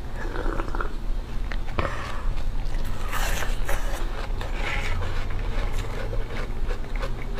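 Crunching and chewing of a block of frozen milk ice, with teeth scraping on the ice and a run of sharp crackles; the loudest crunching comes about three seconds in and again around five seconds, over a steady low hum.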